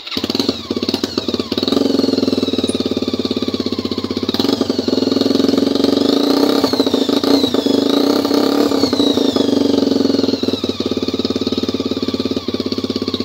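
Single-cylinder motorcycle engine, a Suzuki Thunder bored out to 152 cc, running loud through the bare header pipe with no silencer fitted: a rapid, harsh popping exhaust note. It is revved up and down a few times about halfway through.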